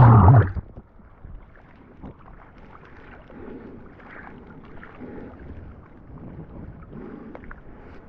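Muffled water sloshing around a camera in the surf, rising and falling, after a short loud rush at the very start.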